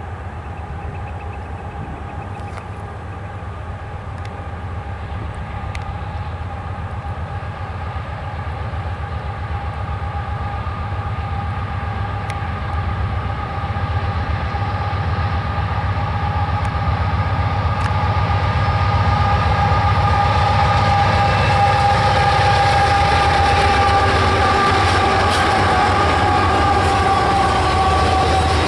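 Canadian Pacific freight train approaching behind a GE AC4400CW diesel locomotive. A low engine rumble and a steady high-pitched tone grow louder throughout as it nears.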